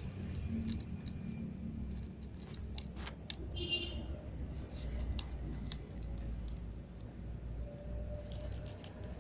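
Domestic cat crunching dry kibble from a plastic tub: an irregular run of sharp crunches and clicks. A steady low rumble runs underneath, and a brief high chirp sounds a little before halfway.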